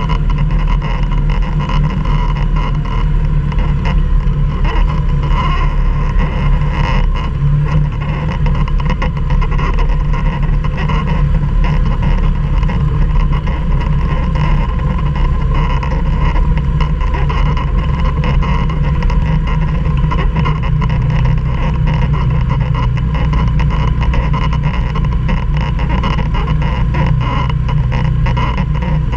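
Quad (ATV) engine running steadily at a fairly even pitch.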